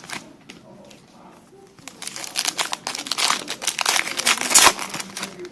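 Foil wrappers of 2012 Prestige football card packs crinkling as they are handled and torn open. A quiet stretch of about two seconds, then a dense run of crinkling that is loudest just before the end.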